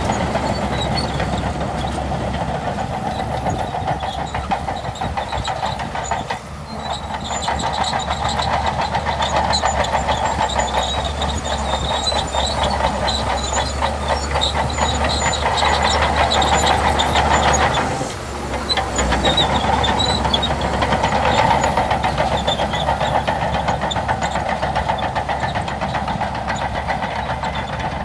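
Crawler bulldozer's diesel engine running under load, with its steel tracks clattering steadily. The sound drops briefly about six seconds in and again about eighteen seconds in.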